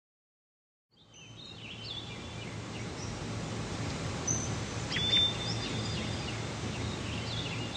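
Recorded nature ambience of birds chirping over a steady hiss, fading in after about a second of silence. The chirps are scattered and short, and the ambience is the lead-in to the next song on the soundtrack.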